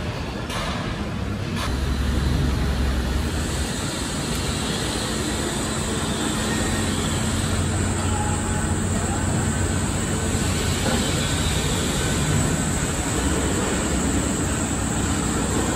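Steady street traffic noise: a low rumble of vehicle engines under a constant hiss, the rumble growing stronger at times.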